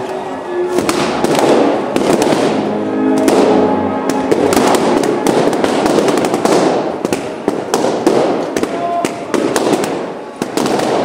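Latex party balloons bursting one after another: many sharp pops at an irregular, rapid pace.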